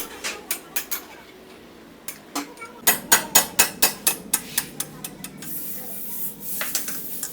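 Hammer striking a steel punch to drive the old steering-head bearing cup out of a 70cc motorcycle's frame: sharp metallic taps, a few at first, then a quick run of about five a second. A steady hiss comes in near the end.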